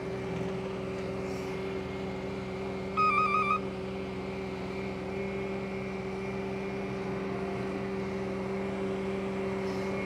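Farm machinery engine running steadily. About three seconds in, a short warbling electronic beep lasts about half a second.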